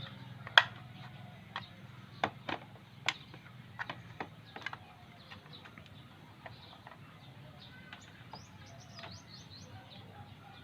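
Irregular sharp clicks and knocks of hard plastic as a blood pressure monitor's case is handled and worked open, the loudest about half a second in, thinning out after about five seconds. A bird chirps a quick series of short rising notes near the end, over a low steady hum.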